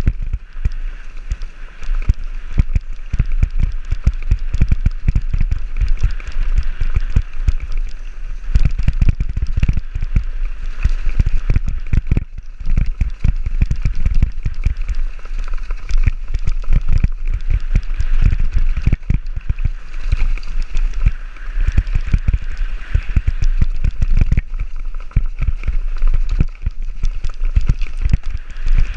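Helmet-camera audio of a downhill mountain bike riding fast over a dry, leaf-covered, rocky trail: tyres crackling over leaves and stones, with frequent knocks and rattles as the bike hits bumps. A steady low wind rumble on the microphone runs underneath.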